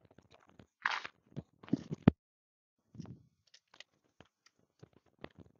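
Scattered clicks and short rustling noises with dead silence between them; the loudest rustle comes about a second in and a sharp knock just after two seconds.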